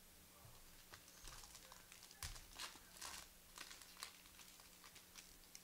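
Foil trading-card pack wrapper being crinkled and torn open: a run of faint, sharp crackles that starts about a second in and fades out near the end.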